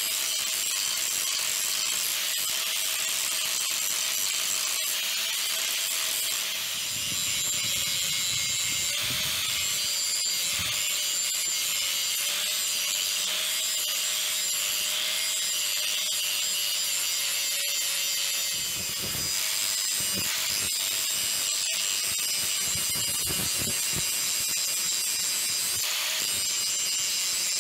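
Electric angle grinder with an abrasive disc grinding the edge of a steel axe head: a steady high whine with a harsh grinding hiss. The sound eases briefly twice, about six seconds in and again about eighteen seconds in.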